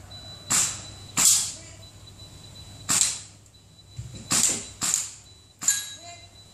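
Airsoft BB gun firing six single shots at irregular intervals, each a sharp crack with a short tail.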